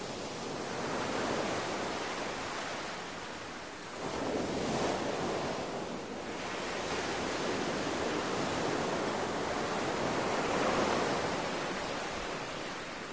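Wind gusting outdoors, a rushing noise that swells and eases every few seconds.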